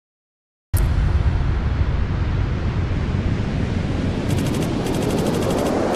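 Logo sound effect: a loud rumbling burst of noise starts suddenly about three-quarters of a second in and keeps going, with a rapid crackling rattle from about four seconds in and a rising sweep building near the end.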